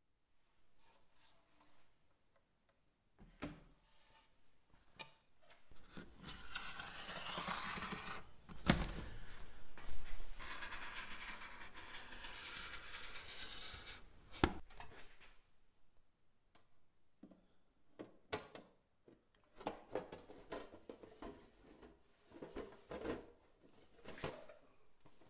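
A utility knife drawn along a metal straightedge to score a thin hammered copper sheet makes a long scraping hiss with a couple of sharp knocks. Scattered light clicks and rustles follow as the thin metal sheet is handled.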